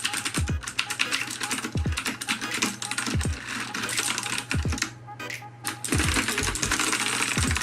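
Fast, continuous typing on a HyperX Alloy FPS mechanical keyboard, its Cherry MX Blue switches clicking sharply, with a brief lull about five seconds in. A low thump from background music repeats about every second and a half underneath.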